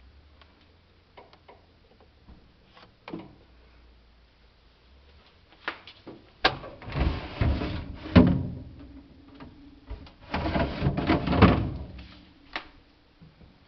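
Refrigerator parts being handled: a few light clicks and knocks, then two loud stretches of plastic drawers sliding and rattling, each about two seconds long, the second a couple of seconds after the first.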